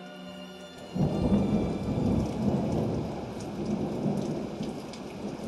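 Thunderstorm sound effect: thunder rumbles in suddenly about a second in, over steady rain that keeps falling.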